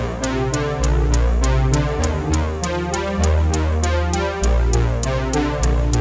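Electronic background music: a steady beat of about four strokes a second over a deep bass line that changes note every second or so.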